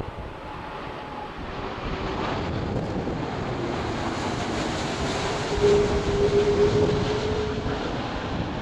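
Airbus A330-200 jet airliner on final approach passing low overhead with its landing gear down: a rushing jet engine roar that builds and is loudest about six seconds in, with a faint steady hum tone in it.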